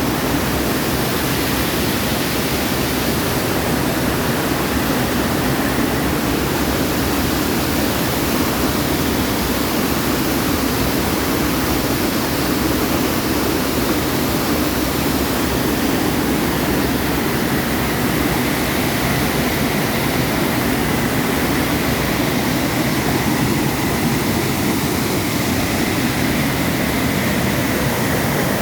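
Waterfall's falling water rushing in a steady, unbroken roar of noise.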